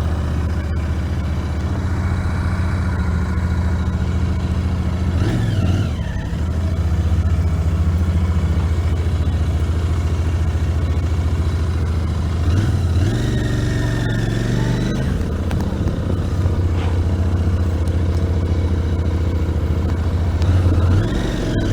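Royal Enfield Interceptor 650's parallel-twin engine running under way, heard raw from the rider's seat. The engine note is steady, with two breaks where the pitch shifts, about six and about thirteen seconds in.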